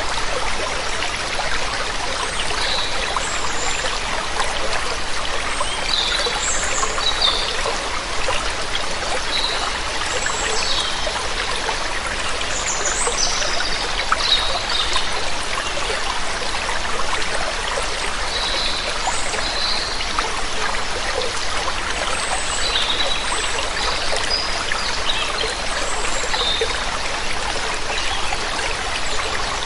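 Steady rush of flowing water, with small birds chirping in short, scattered calls over it.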